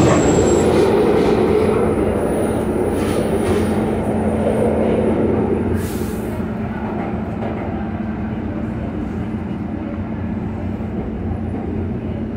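Interior of a SEPTA subway-surface trolley (Kawasaki light rail car) running through the tunnel: steady wheel-on-rail rumble with a constant low motor hum. A high wheel squeal dies away within the first second, and the running noise grows gradually quieter as the car slows toward a lit station platform.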